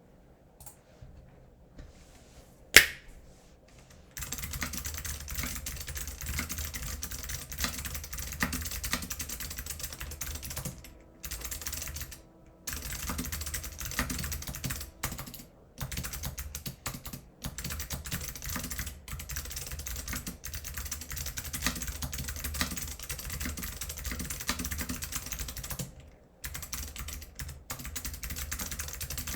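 Typing on a mechanical keyboard with unlubed Alps SKCM Blue clicky switches and PBT keycaps. A single sharp click comes about three seconds in, then rapid, continuous keystrokes start about a second later, with a few brief pauses.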